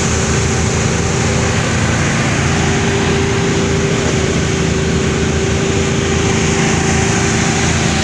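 Homemade rice threshing machine running steadily, a loud, even mechanical drone with a constant hum.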